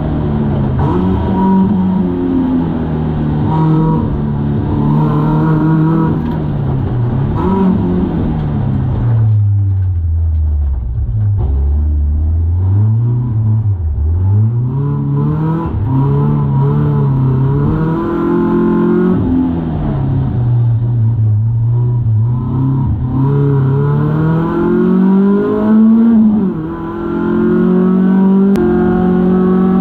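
BMW E36 coupe drift car's engine heard from inside the cabin, its revs rising and falling over and over through a drift run. About ten seconds in the revs sink low for a few seconds, then climb back and hold high near the end.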